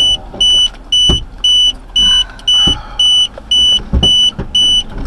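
Electronic warning beeper sounding a short high tone about twice a second, steady and unbroken, with a few dull low thumps in between.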